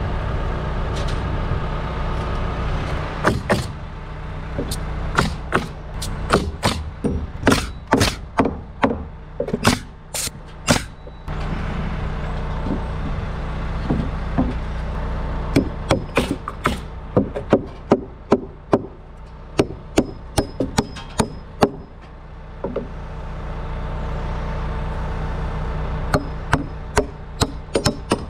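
Nails being driven into wooden fascia boards: many sharp knocks in quick runs, over a steady engine hum.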